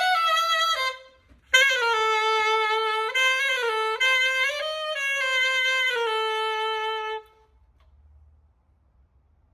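Keilwerth SX90 Series 2 saxophone played solo after a full strip-down service and regulation: a held note, a brief breath about a second in, then a slow phrase of sustained notes ending on a long held note that stops about seven seconds in.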